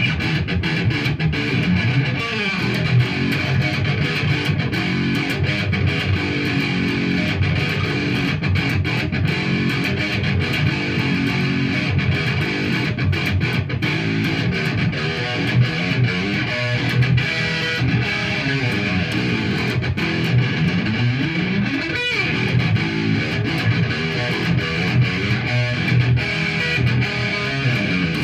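Electric guitar playing an instrumental passage of quickly changing picked notes, without a break.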